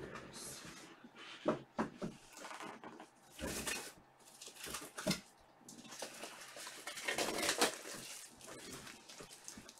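Trading cards and their pack wrappers being handled on a table: irregular rustles, crinkles and small clicks, busiest about seven seconds in.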